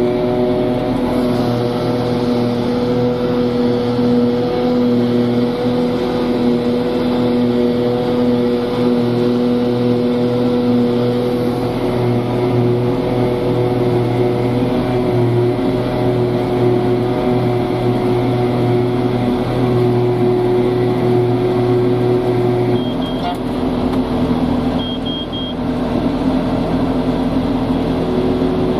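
Diesel engines of silage harvesting machinery (forage harvester and tractors) running steadily under load. The engine note changes about three-quarters of the way through, with two short high beeps around then.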